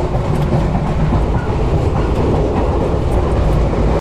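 A passenger train carriage running, heard from inside: a steady, loud rumble with faint light rattles and clicks from the wheels and the car body.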